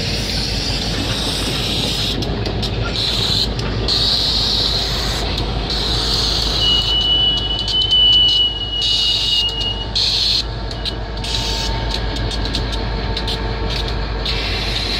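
Freight train of tank cars rolling past with two diesel switcher locomotives: a steady rumble of wheels on rail and engine. About seven seconds in a high, steady squeal rises from the wheels on the rail and lasts about three seconds.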